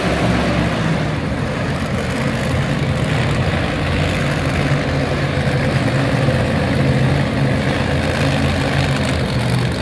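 Monster truck engine running steadily at an even, low pitch, with no revving.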